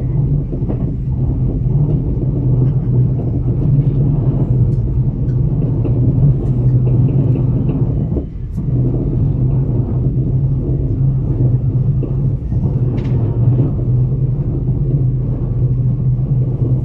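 Steady low rumble and hum of a moving passenger vehicle heard from inside its cabin, easing briefly about eight seconds in.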